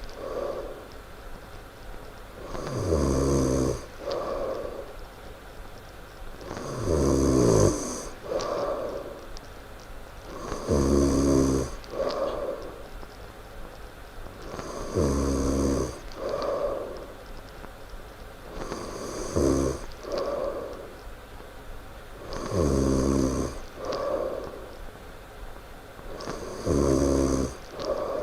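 A sleeping person snoring loudly, about one snore every four seconds, seven in all. Each snore is followed by a softer, shorter breath out.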